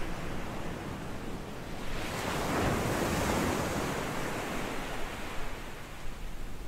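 Ocean waves: a steady rushing wash of surf that swells about two seconds in and ebbs again.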